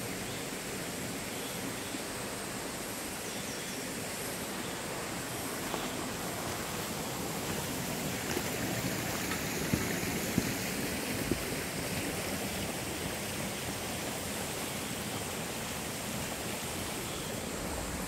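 Mountain stream running over rocks: a steady rush of water, with a few faint knocks around the middle.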